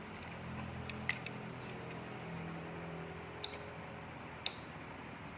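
Faint low electrical hum with three light, sharp clicks about one, three and a half and four and a half seconds in.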